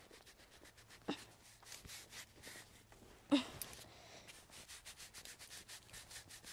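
Small bristle brush rubbing over a pony's face and forelock in quick, repeated strokes. Two short, louder sounds break in, about a second in and again a little past three seconds.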